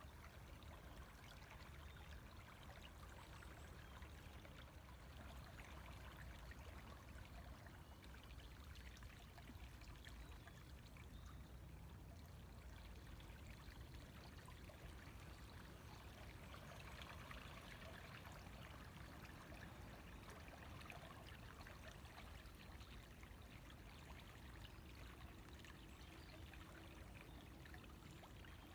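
A river flowing: a faint, steady rush and trickle of water.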